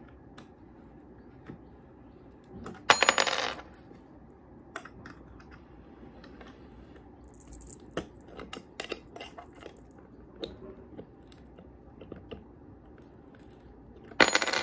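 Two short bursts of small metal pieces jingling, about three seconds in and again at the very end, with scattered light clicks and taps between them as a hex key works bolts into a small wooden bed frame.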